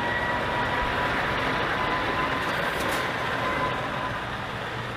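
Steady rushing spray of water washing mud off a plastic toy truck, with a faint steady whine beneath it.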